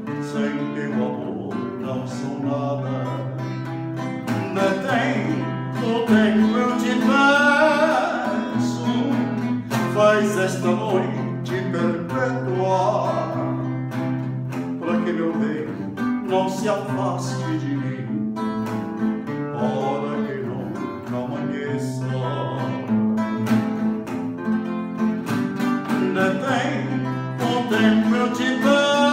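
Solo male voice singing a slow bolero with vibrato, accompanied by his own acoustic classical guitar.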